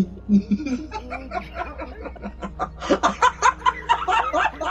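Several people laughing hard and breathlessly, in wheezing, gasping pulses that grow louder and quicker about three seconds in.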